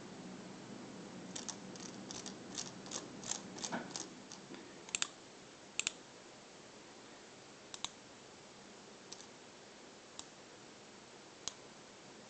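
Computer mouse buttons clicking: a quick run of about a dozen clicks in the first few seconds, then a few double clicks and single clicks spaced a second or more apart.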